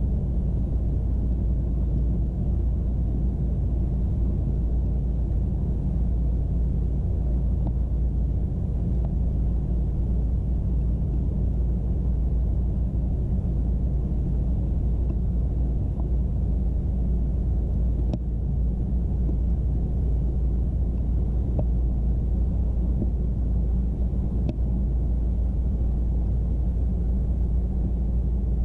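HO scale model train running along its track, heard from a camera riding on the train: a steady low rumble of wheels and motor with a low hum, and a couple of faint clicks from the rails.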